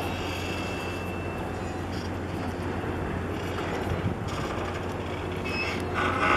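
Steady low mechanical hum under outdoor background noise, with a brief louder burst of sound near the end.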